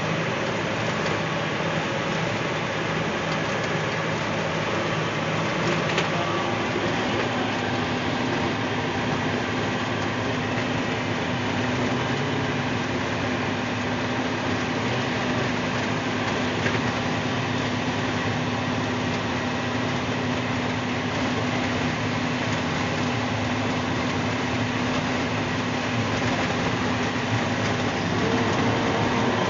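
Heavy oilfield rig truck driving on a gravel road, heard from inside the cab: a steady diesel engine drone mixed with tyre and road noise.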